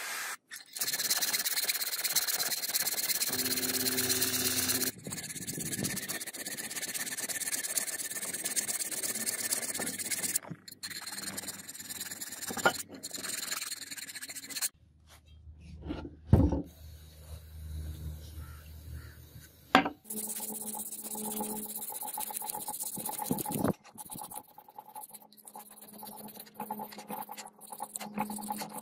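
Hand file rasping over the edges of a metal sword guard clamped in a vise, stroke after stroke, in short segments that cut off abruptly. Near the end the guard is rubbed flat on sandpaper.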